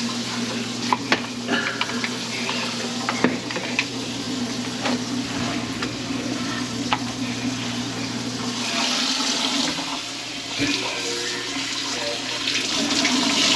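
Water running and rushing in a kitchen sink being cleared of a grease-and-food clog, with a few sharp knocks in the first few seconds. A steady low hum stops about eight or nine seconds in, after which the rush of water grows louder.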